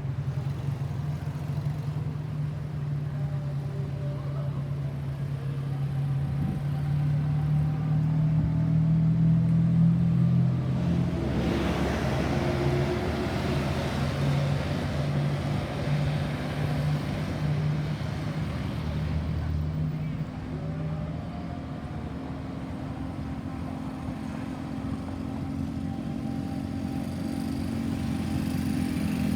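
Motor vehicle engine running with a steady low hum, and a vehicle driving past close by about eleven seconds in.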